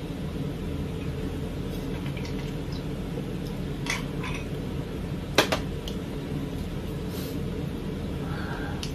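A few short clinks of metal spoons and a glass against ceramic plates and a glass tabletop during a meal, the sharpest about five and a half seconds in, over a steady low hum.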